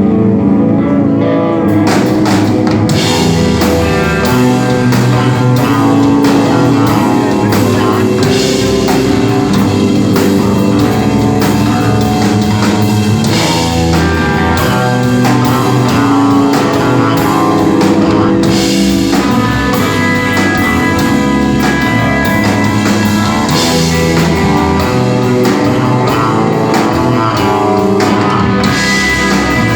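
Instrumental desert rock band playing live: guitar and bass lines, with the drum kit and cymbals coming in about two seconds in and driving on steadily.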